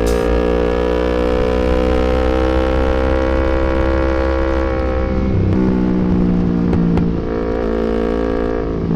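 Yamaha MT-25's 250 cc parallel-twin engine running at steady revs under riding, heard from on the bike. The pitch eases a little, then drops to a lower, steady note about five seconds in.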